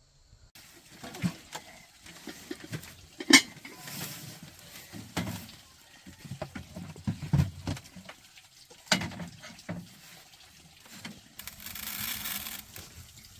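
Irregular knocks and clatter of objects being handled, the sharpest about three seconds in, with a brief hiss near the end.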